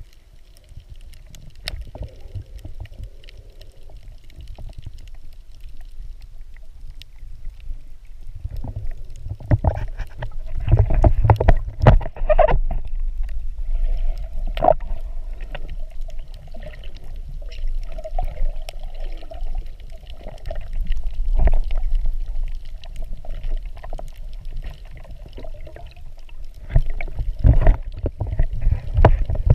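Muffled underwater sound of a snorkeler swimming: a low rumble of moving water with frequent knocks and thumps, louder from about ten seconds in.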